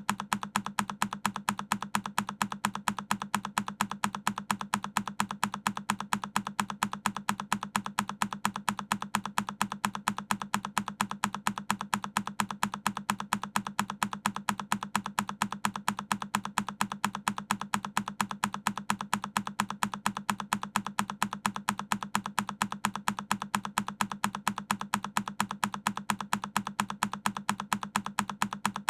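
A single key press on a Keychron K10 mechanical keyboard, looped: the same clack repeats over and over at a rapid, perfectly even rhythm.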